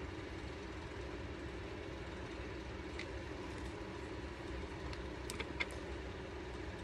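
Steady low background hum with a few faint small clicks, once about three seconds in and twice more past the five-second mark.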